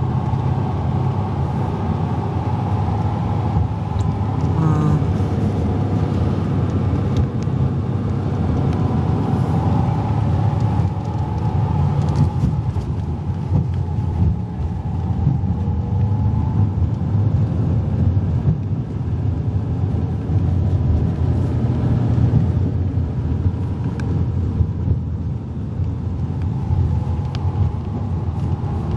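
Steady low rumble of a moving vehicle, running evenly throughout.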